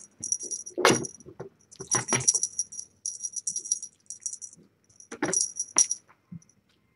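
Small bell on a feather wand cat toy jingling in repeated shakes as the toy is jiggled, stopping about six seconds in. A few soft thuds come through, the loudest about a second in.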